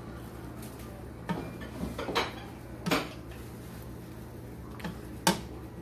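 Metal slotted spatula clinking and scraping against a frying pan as a quesadilla is pressed and shifted: a handful of short clinks, the loudest near the end, over a steady low hum.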